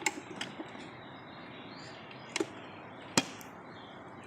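A few sharp plastic clicks and taps from a car fog light assembly and its retaining clip being handled and fitted by hand, with two louder taps about two and a half and three seconds in.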